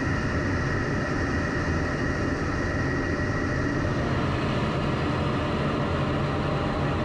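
Jet aircraft in flight: steady engine and airflow noise with a faint constant high whine.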